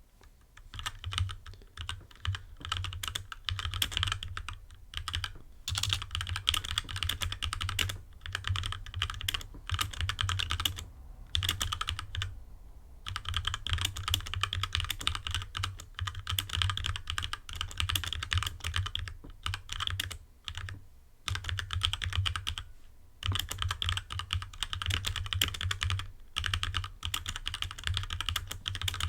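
Fast continuous typing on a HyperX Alloy Origins Core mechanical keyboard with linear red switches: rapid key clacks in bursts, with brief pauses between runs and one longer pause around eleven seconds in.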